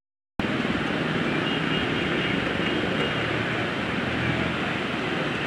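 Steady traffic din from a jammed road: many car, truck and motorcycle engines idling and creeping along together.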